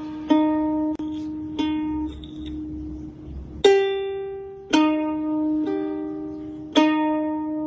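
Ukulele strings plucked one at a time by a cat's paw: about seven single notes at uneven intervals, each ringing and fading away. The loudest note, about halfway through, is a little higher than the others.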